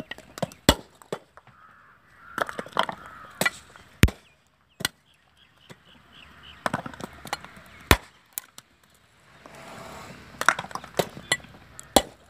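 A large knife blade striking husked coconuts and cracking their shells open. The sharp knocks come irregularly, some in quick runs of two or three.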